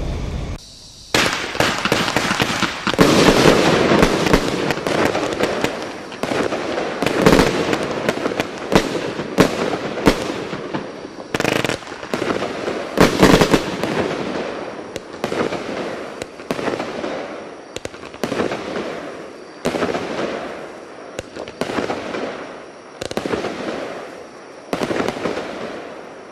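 Burn it 'Quantum' consumer firework cake firing: a rapid string of launch shots and mid-air bursts, about one or two a second and sometimes in quick clusters, each trailing off. The volleys thin out and get quieter toward the end.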